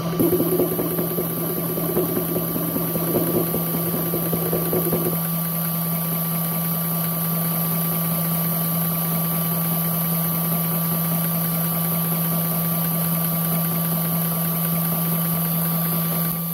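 Vdapavin 4500 PSI high-pressure air compressor running under load while filling a PCP airgun toward 4,500 PSI: a steady motor hum with a pumping knock. The knock is heavier for the first five seconds, then the running evens out.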